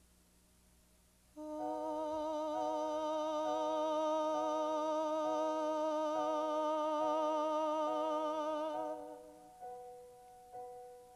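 A woman's voice holds one long wordless note with vibrato for about seven seconds, over soft keyboard chords that restart about once a second. After it fades near the end, single piano notes begin.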